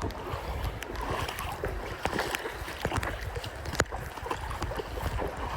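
Feet wading and splashing through a shallow, cold river, with irregular sloshes of water and a sharp knock about two-thirds of the way through.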